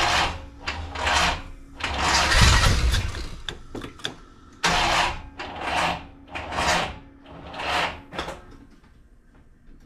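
Small block Chevy V8 being cranked by its starter in about eight short bursts, one longer about two seconds in, without the engine starting. The brand-new starter binds against the flywheel, which the owner says means it needs shimming.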